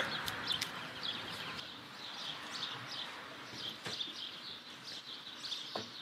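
Small songbirds chirping over steady outdoor background noise, with a few soft clicks near the end.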